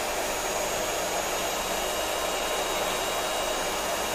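Electric hand mixer running steadily at one speed, its beaters whisking egg yolks in a small glass bowl.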